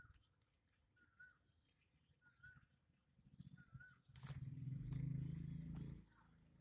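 A small bird repeats a short chirp roughly every second and a quarter. About four seconds in, a louder low, drawn-out sound lasting about two seconds covers it.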